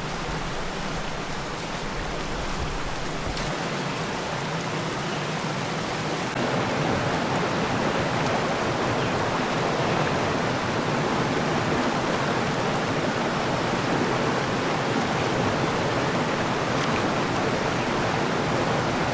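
River water rushing steadily over rocks. The rush gets louder about six seconds in.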